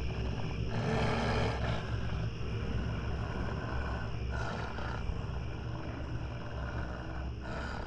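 Spooky-forest sound-effect ambience: a steady low rumbling drone with a few brief growl-like animal swells over it, near the start, in the middle and at the end.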